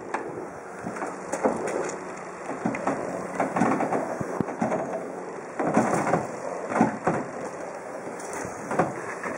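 Irregular knocks, creaks and scraping from a Farrier F31 trimaran's folding float system as the outrigger float is swung inward by hand, over a steady rushing noise.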